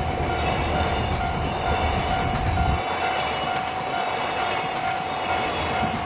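Container flatcars of a freight train rolling over the level crossing, the wheels clicking over rail joints, with a deep rumble that drops away about three seconds in. Over it the crossing's electronic warning alarm rings as a steady tone.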